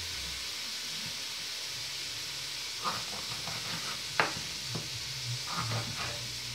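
Minced meat and onions sizzling in a frying pan, a steady hiss throughout. From about three seconds in come a few light clicks and knocks of kitchen work, the sharpest just after four seconds.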